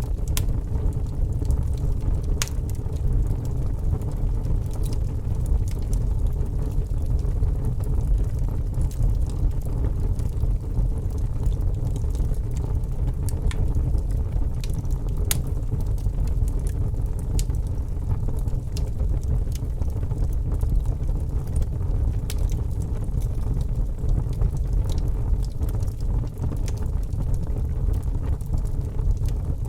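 Wood fire crackling in a fireplace, with irregular sharp pops over a steady low rumble.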